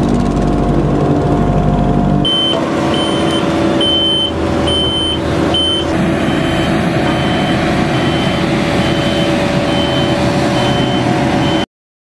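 A small farm vehicle's engine running close by, then after about two seconds road-paving machinery running with a reversing alarm beeping repeatedly, loud at first, then fainter and quicker about halfway through. The sound cuts off abruptly near the end.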